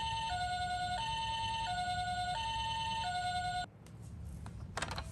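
Toy ambulance's electronic two-tone siren, alternating high and low notes about every 0.7 s, then cutting off suddenly. A few sharp clicks follow near the end.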